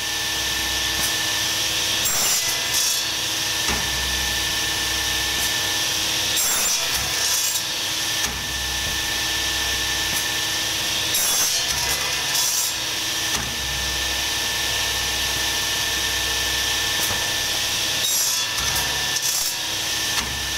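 An industrial machine running steadily with a constant hum and hiss, with a louder scraping, sawing-like noise several times as material is worked through it.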